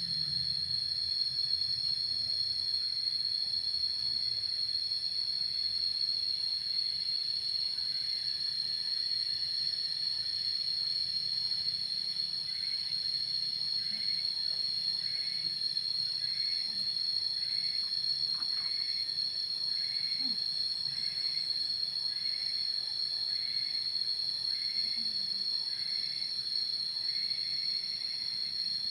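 Insects chirring in a steady, high-pitched drone. From about halfway through, a second animal joins with a short call repeated roughly once a second.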